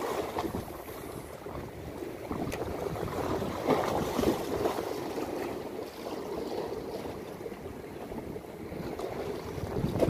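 Small waves splashing and washing against concrete breakwater blocks, rising and falling unevenly.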